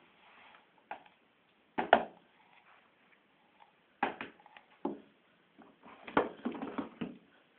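Indesit WIL105 front-loading washing machine at the start of a wash: a run of irregular clicks and knocks, with a denser cluster of them near the end.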